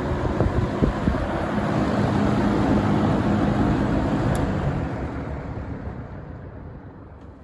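1971 Windsor (Lakewood P-21) box fan running, a hollow, bassy rush of air over a low hum, with a few knocks in the first second. The sound fades away over the last few seconds.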